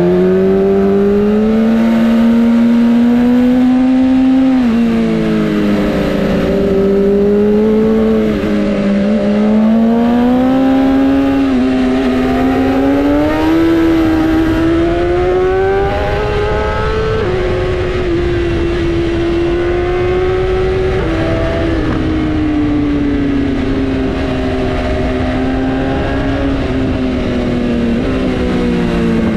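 Inline-four sportbike engine running under way, its pitch climbing and easing off slowly as the throttle opens and closes, with a few sudden drops in pitch along the way.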